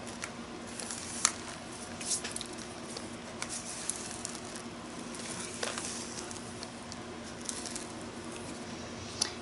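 Hands pressing and smoothing a glued paper cut-out onto a journal page: soft paper rustling with scattered light taps and clicks, over a faint steady hum.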